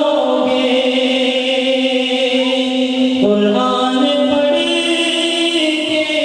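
A man singing a naat, an Urdu devotional poem, into a microphone, in long held notes; the melody moves to a new line about three seconds in.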